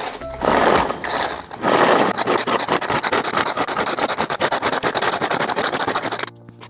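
Hand-powered food chopper spinning its blades through red onion and ginger in a plastic bowl, a rapid rattling whir. A short spin comes first, then a longer run that stops abruptly near the end.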